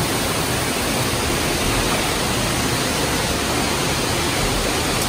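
Steady, even rush of flowing water in a cave stream passage.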